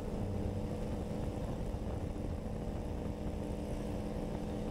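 Harley-Davidson Ultra Limited 114's V-twin engine running steadily under way, a low even rumble.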